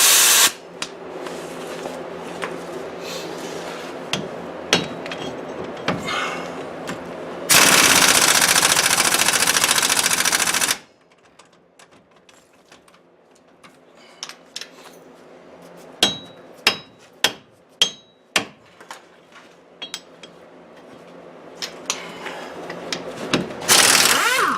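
Pneumatic impact wrench hammering at the stuck 15 mm bolts that hold a front wheel hub to the steering knuckle: a brief burst at the start, a long burst of about three seconds, and another short burst near the end. Between the bursts come several sharp metallic clicks.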